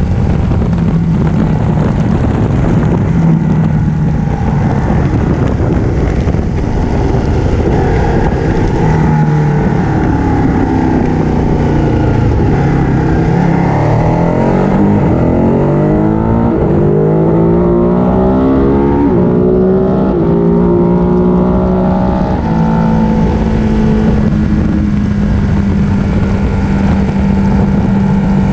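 Ducati 1299 Panigale's Superquadro V-twin engine running under the rider while riding, with steady wind rush. The engine's pitch holds steady, then rises and falls several times from about ten seconds in to about twenty-two seconds in.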